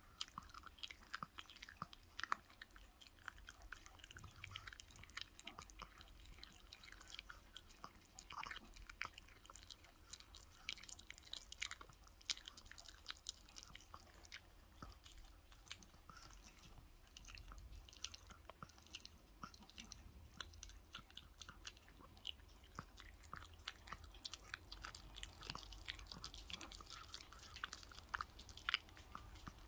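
Small dog chewing and gnawing on a piece of raw chicken held out by hand: faint, irregular wet clicks and crunches of teeth on meat and bone, continuing throughout.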